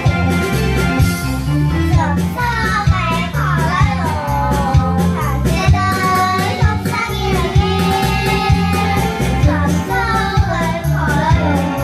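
Children's song: a child's voice sings a melody over an instrumental backing with a steady beat, the singing coming in about two seconds in.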